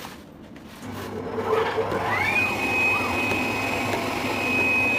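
Pattern-cutting machine starting up: after about a second a motor comes on and its whine rises in pitch, then holds at a steady high tone over a constant running hum.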